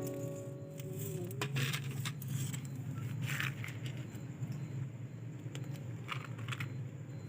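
A few brief rustling, crackling sounds over a steady low hum, with a held musical note fading out in the first second.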